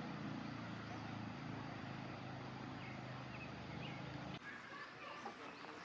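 A small engine running steadily with a low hum, which cuts off suddenly about four and a half seconds in. Quieter outdoor background follows, with a few faint chirps.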